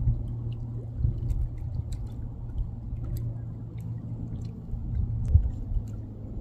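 Grey heron making low, gurgling throat sounds, with louder pulses about a second in and again near the end, over a steady low hum. The bird keeps doing this, which the observer takes as something stuck in its throat or a sign it is ill.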